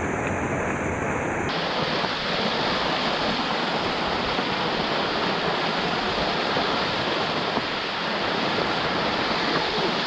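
Waterfall water rushing down the rock face and splashing directly onto the camera, a steady, dense rush of noise close up.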